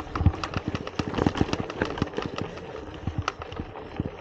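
Mountain bike ridden up a rough, stony dirt track, picked up by a camera on its handlebars: tyre noise on the gravel with irregular rattles and knocks from the bike, several a second.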